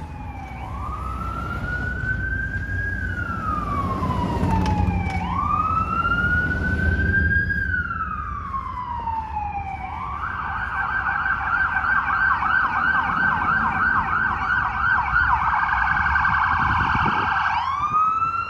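Emergency vehicle siren sounding in a slow rising-and-falling wail, twice. About ten seconds in it switches to a fast yelp, then goes back to the wail near the end, over the low rumble of street traffic.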